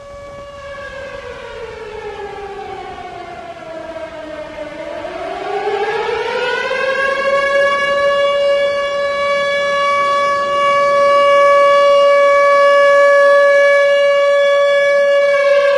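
Civil defense siren of the kind sounded for tornado warnings: one pitched tone with overtones that falls in pitch for the first few seconds, rises again around five seconds in to a steady high wail, growing louder, and starts to fall right at the end.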